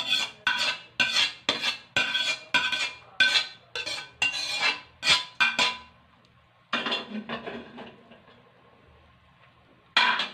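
Metal spatula scraping and clanking against steel pans while noodles are scraped out and mixed in a large wok. There are ringing metal strikes about twice a second for the first six seconds, then a longer scrape, a quieter spell, and one more clank near the end.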